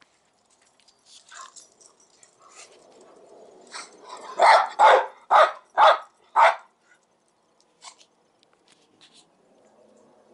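A dog barking: a quick run of about six loud barks in a row around the middle, with a few fainter yips before and after.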